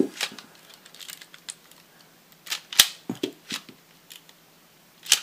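Irregular sharp plastic clicks and snaps of a Lego gun being handled, spaced unevenly rather than in a firing rhythm, with the strongest ones near the middle and at the end.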